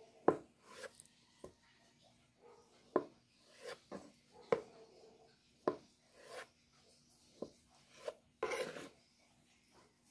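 Kitchen knife slicing through blocks of tofu, the blade knocking down onto a plastic cutting board about once a second, with a longer scrape of the knife near the end.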